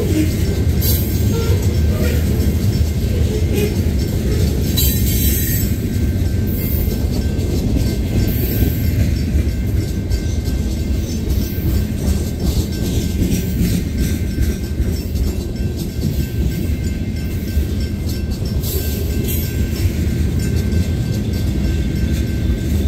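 Freight cars of a slow-moving manifest train rolling past on jointed track: a steady low rumble of steel wheels on rail, with a few brief high-pitched bursts from the wheels.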